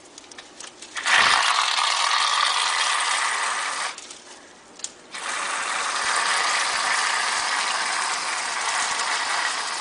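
Aerosol foam can spraying in two long hissing, sputtering bursts, the first about three seconds long, the second about five, with a short pause between.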